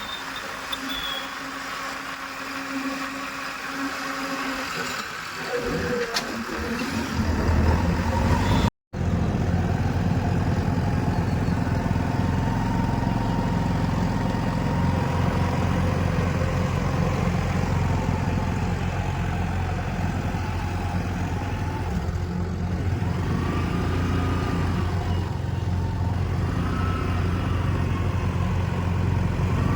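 Heavy diesel engine running steadily with a low, pulsing rumble after an abrupt break about nine seconds in; before the break the engine is fainter. Near the end a faint whine rises and falls a few times.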